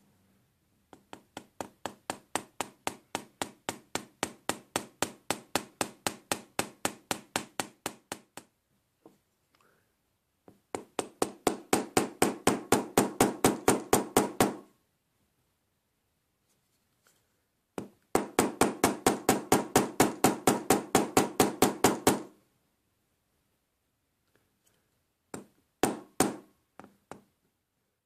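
A small hammer tapping a steel pin into the lever of a VW T4 Transporter door lock mechanism, metal on metal. The taps come in three runs of quick, even strokes, about five or six a second, then a few scattered taps near the end.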